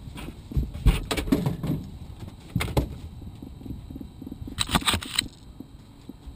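Clusters of knocks and clatter on a boat as a fish is hooked and brought aboard: a loud group about a second in, a shorter pair near the middle, and another cluster a little before the end.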